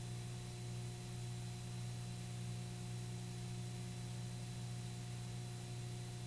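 Steady low electrical hum with a few thin steady tones above it and a constant hiss, with no other sound: the background noise of the recording.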